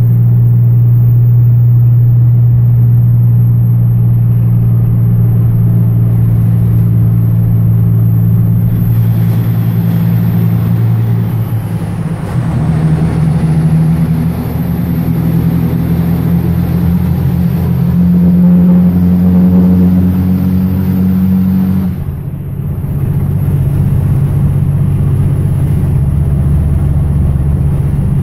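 Dodge Ram's 5.9 L Cummins inline-six diesel heard from inside the cab at road speed, a loud, steady drone. Its note drops with a brief dip in loudness about twelve seconds in, and shifts again about ten seconds later.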